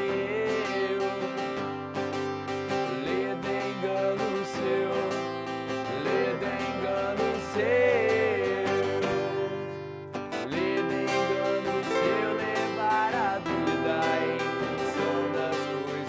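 A band playing a song, with guitar to the fore: steady chords under a wavering melody line. The music thins briefly about ten seconds in, then the full band comes back.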